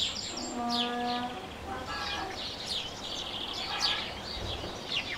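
Birds chirping in a rural ambience, many short quick chirps. Near the start, a lower steady call lasts about a second.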